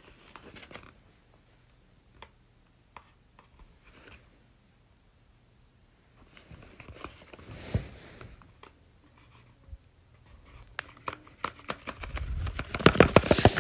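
Paper dragon puppet on a hand rustling and crinkling as it is moved about, with scattered sharp paper clicks that come thicker and louder near the end.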